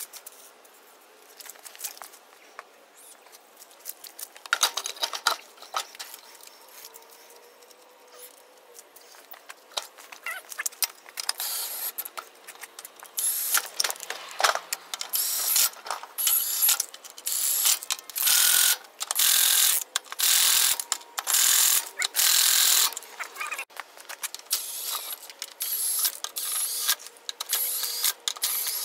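Cordless impact wrench hammering the lug nuts of a trailer wheel tight, in repeated bursts of about a second each from about twelve seconds in. Before that there are only light scattered clicks and rattles.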